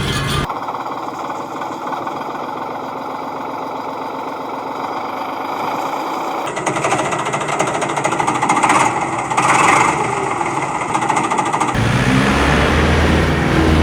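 Rapid mechanical rattling, like a small motor-driven mechanism running. It changes character about halfway through and gives way to a deeper steady hum near the end.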